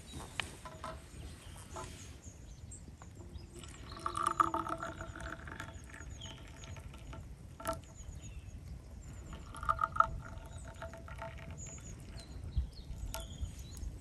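Tea poured from a porcelain teapot into small glass tea glasses on a metal tray, heard as two pours, about four seconds in and again about ten seconds in, with a single click between them. Birds chirp faintly throughout.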